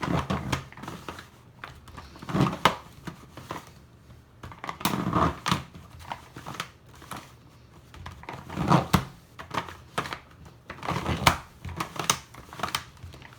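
Giant 18 cm He Shu Rubik's cube being turned by hand through a J-perm: its large plastic layers scrape and clack in irregular bursts of turns. The turns are stiff and really difficult, as the cube tends to lock up.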